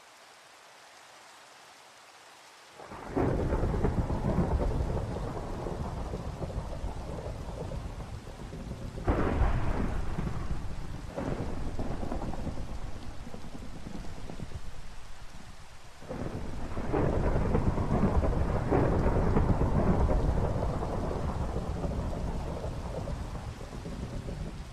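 Steady rain with several rolls of thunder. The first comes about three seconds in, sharper claps follow near the middle, and a long rumble in the last third dies away at the end.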